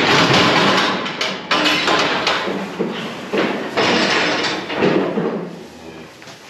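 Steel cattle crush clanging and rattling in a run of loud, irregular bangs as its gates are worked to let a bullock out, quietening near the end.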